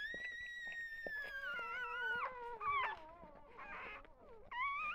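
Newborn goldendoodle–golden retriever cross puppy crying: one long high-pitched squeal that sags in pitch and breaks off after about two seconds, then a shorter cry near the end.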